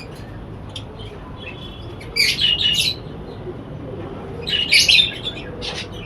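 A room of small pet parrots, lovebirds and budgies, chirping: two short flurries of high calls, one about two seconds in and one near the end, with a few scattered chirps between.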